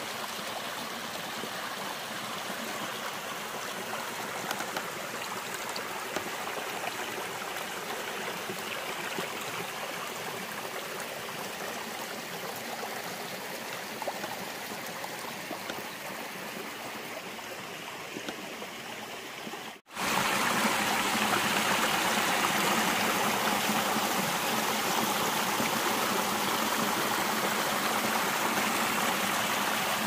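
Shallow rocky creek running over stones and small cascades, a steady wash of water. About two-thirds of the way through it drops out for a moment and comes back louder and brighter.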